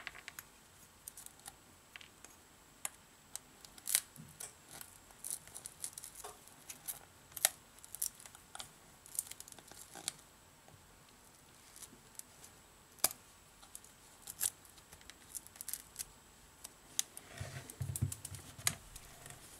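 Metal pry tool working under the edge of a heated, cracked smartphone display: irregular sharp clicks and crackles as the broken glass and adhesive give way. Near the end, a duller bump and rustle as the phone is laid on the mat.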